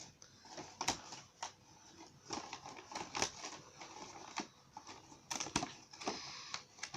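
Folded paper boxes being handled and pressed together, with irregular light taps and rustles of paper.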